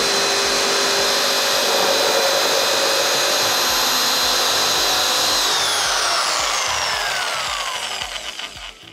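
Dexter Power V 500 W electric jigsaw cutting through a pine board, running steadily at full speed. About halfway through its pitch starts to fall as it is switched off and winds down, fading out near the end.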